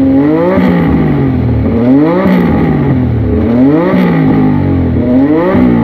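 A motorcycle engine revving up and down repeatedly, its pitch climbing and falling in swells about every one and a half to two seconds.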